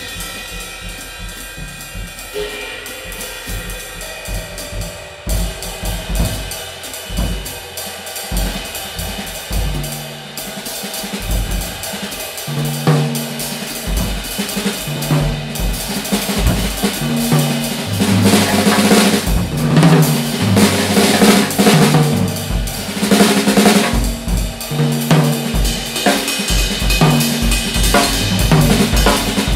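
Solo drum kit improvisation with Zildjian cymbals: it opens softly with cymbals ringing, then bass drum and tom strokes come in, and the playing grows louder and busier on toms, snare and cymbals, loudest from a little past halfway.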